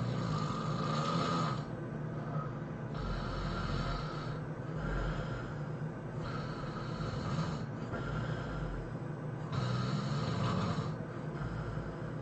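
A person snoring in deep sleep, a rasping snore about every two seconds, with low rumbling breaths in between.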